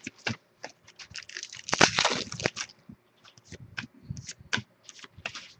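Crinkling and tearing of a foil trading-card pack wrapper, loudest between about one and a half and two and a half seconds in, among scattered sharp clicks of cards being handled.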